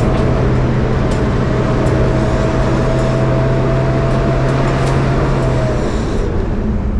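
Engine and road noise inside a four-wheel-drive vehicle's cabin on the move: a steady engine drone with a thin whine above it, both dropping away about six seconds in, and a few short rattles and knocks.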